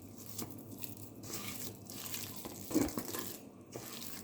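Boiled, mashed potato being mixed with spice powders in a bowl: soft, irregular mashing sounds, a little louder about three seconds in.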